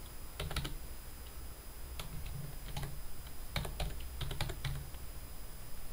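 Computer keyboard keys typed in short, irregular bursts of clicks, faint.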